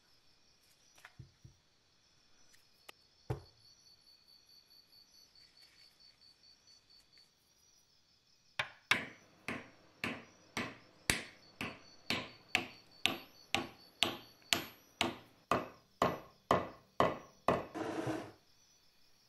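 Hammer driving a wooden wedge into the top of an axe handle seated in the axe head's eye. A regular run of about twenty sharp strikes, roughly two a second, starts about halfway through. A few scattered knocks come before it.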